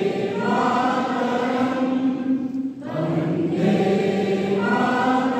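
A crowd of people singing together in unison, holding long notes, with a brief pause about three seconds in.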